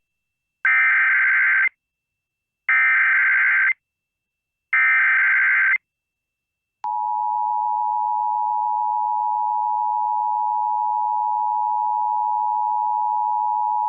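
Emergency Alert System test header: three one-second bursts of digital data tones, evenly spaced about two seconds apart, then about seven seconds in a loud, steady attention tone starts and holds.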